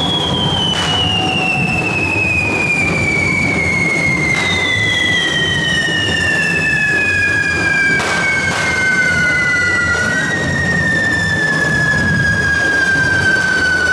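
Whistling fireworks: long, shrill whistles slowly falling in pitch, a second one joining partway through and stopping about ten seconds in, over a steady din with several sharp bangs.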